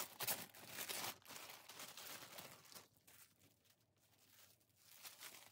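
Faint crinkling of a clear plastic garment bag being opened and a garment pulled out, with a short sharp rustle at the start; it dies away to near silence about three seconds in.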